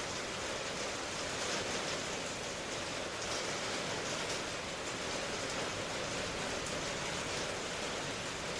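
Steady rain, an even hiss with faint, scattered taps of drops through it.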